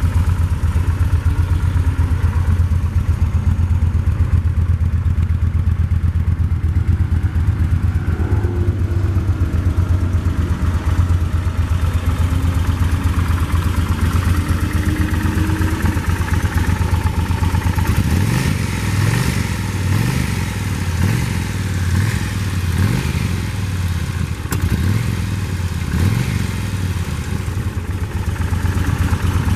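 2008 Kawasaki Nomad 1600's V-twin engine with its stock exhaust, idling steadily. About two-thirds of the way through, the throttle starts being blipped repeatedly, the revs rising and dropping back roughly once a second.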